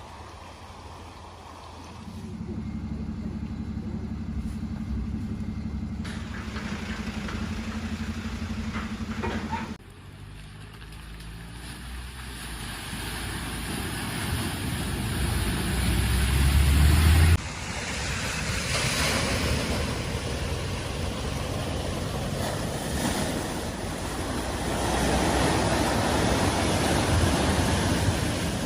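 Vehicles driving through deep water at a flooded ford: engine noise and the rush and splash of water, in short clips with abrupt cuts between them. The first clip has a steady engine hum; the later clips are a rising rumble and then a broad rush of water.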